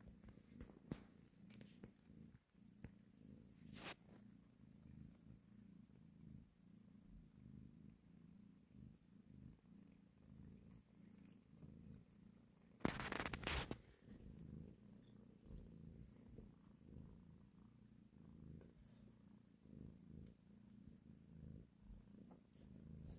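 Mother cat purring steadily and faintly while nursing her kittens, a low pulsing hum. A brief rustle cuts in about halfway through.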